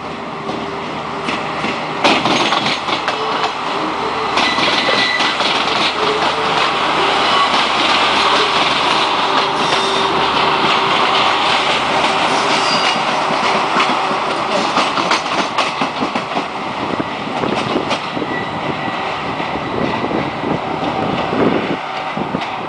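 Renfe regional multiple unit passing close by, its wheels clacking over rail joints and points with faint high wheel squeal at times. It gets louder at about two seconds and eases off in the last few seconds as the train draws away.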